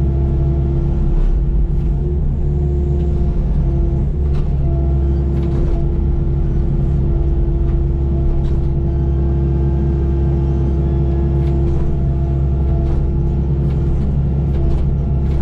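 Kubota KX080 excavator's diesel engine running steadily under work, with a steady high tone over it and scattered sharp knocks as trees are taken out.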